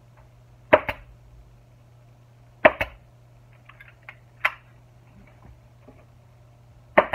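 Pneumatic upholstery staple gun driving staples through a vinyl seat cover into a plastic motorcycle seat pan: a sharp shot about every two seconds, each followed quickly by a smaller clack.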